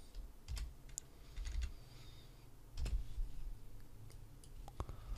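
Computer keyboard keystrokes and mouse clicks: a few separate, soft clicks spread irregularly over several seconds, over a faint low hum.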